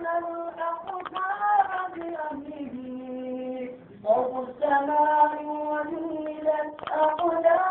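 A single high voice singing an Islamic devotional song in Arabic without accompaniment, drawing out long held notes with small ornaments. The voice breaks off briefly about four seconds in, then carries on.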